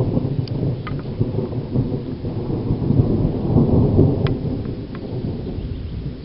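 Long rolling rumble of thunder, swelling about halfway through and then dying away toward the end.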